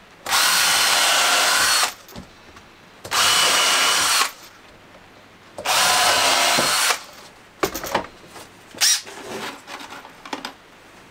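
Cordless drill running in three bursts of about a second and a half each, working into OSB board as the panels are pre-drilled and screwed together. A few short knocks and clatters follow near the end.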